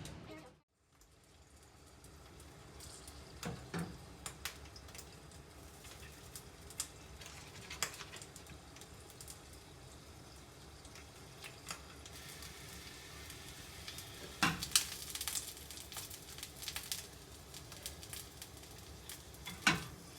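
Food sizzling steadily as it fries on a hot cooking surface, with occasional sharp clinks of metal utensils and dishes.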